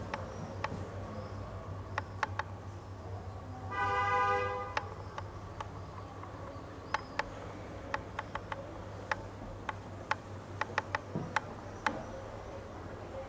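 A vehicle horn sounds once, a single steady honk of about a second, a few seconds in, over a low steady hum. Scattered sharp clicks and taps come and go throughout.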